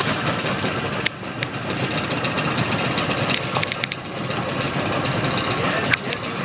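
An engine running steadily, with a few sharp clicks about a second in, near four seconds and near six seconds.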